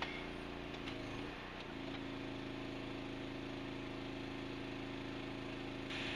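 Hydraulic pier-driving rig running steadily while its ram pushes a steel pier into the ground beside a house foundation, a constant engine-like hum. The pitch sags briefly about a second in as the ram takes load, and a hiss rises near the end.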